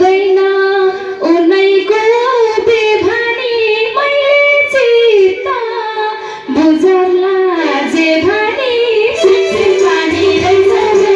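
Woman singing a Nepali dohori folk song into a microphone, in long held notes that bend and slide in pitch.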